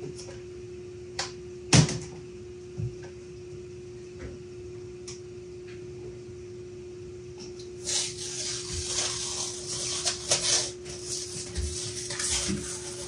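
Knocks and clicks of plywood panels being handled on a wooden cabinet, the loudest knock about two seconds in. From about eight seconds in there is a stretch of scraping and rustling with small clicks, all over a steady low hum.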